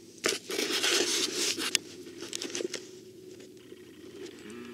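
Loud rustling and scraping for about a second and a half as the handheld camera is turned and brushes against clothing, followed by fainter rustles and ticks. A low steady hum begins near the end.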